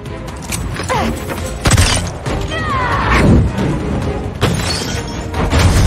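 Action-film soundtrack: dramatic score mixed with a steady low rumble and several sharp crashes and impacts, the loudest about two and three seconds in, with falling pitch glides around the three-second hit.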